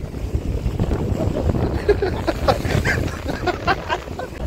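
Wind buffeting the microphone, with choppy lake waves splashing against a rocky shore.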